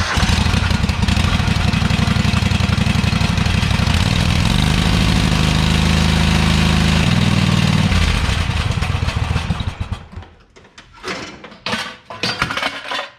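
Craftsman lawn mower's small engine running loudly and steadily, its note shifting a little partway through, then shutting off about ten seconds in. A few light knocks follow.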